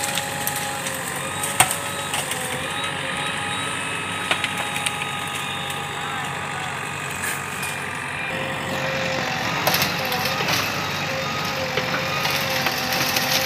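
JCB backhoe loader's engine running steadily with a whine as its backhoe arm pushes into a bamboo clump, with a few sharp cracks and snaps of bamboo stalks breaking at scattered moments.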